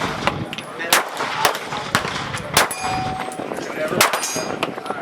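A string of handgun shots on an outdoor range, about six sharp cracks spaced roughly half a second apart, with steel targets clanging as they are hit and one ringing briefly near the middle.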